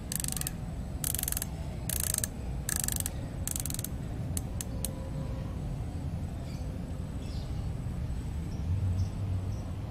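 Windage turret of a Discovery VT2 4-16x50 SFIR rifle scope being turned back 180 degrees, clicking through its detents. There are five quick runs of clicks in the first four seconds, a few single clicks just after, and then the clicking stops.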